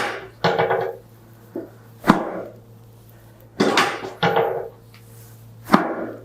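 Chiropractic adjustment on a patient lying face down: about six sharp thumps of hand thrusts against the body and the padded adjusting table, some in quick pairs, each dying away within half a second.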